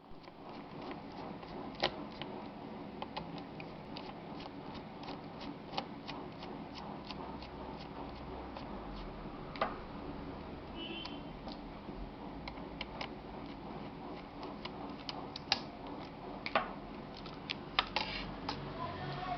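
Scattered light clicks and taps of hands and a screwdriver working on a laptop's plastic case, over a steady background hum.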